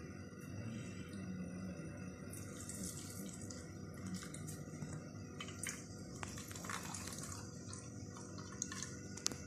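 Juice trickling and dripping into a steel bowl as a cloth bag of grated onion is squeezed and wrung by hand, with a sharp tick near the end.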